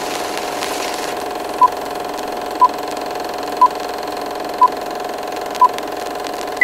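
Film-projector sound effect for a countdown leader: a steady mechanical whirr and hiss, with a short beep once a second, five times, and a higher beep right at the end.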